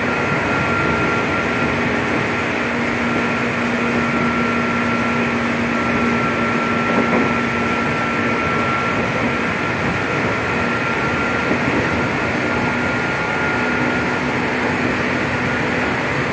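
Interior running noise of a JR 205-series electric commuter car, recorded in a motor car: a steady rumble of wheels on rail with a steady hum and whine from the traction motors, held at one pitch as the train runs at speed.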